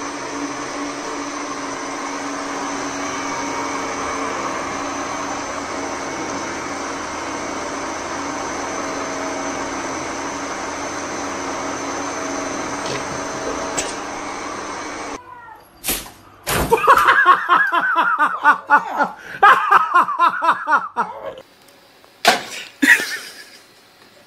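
A countertop blender's motor runs with a steady, unchanging hum, then cuts off suddenly about fifteen seconds in. After it come several loud, pulsing cries and a few sharp knocks.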